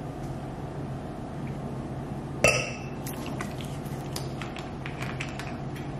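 A single sharp clink with a short ring about halfway through, then a run of small clicks and ticks as the cap of a vanilla extract bottle is worked, over a steady low hum.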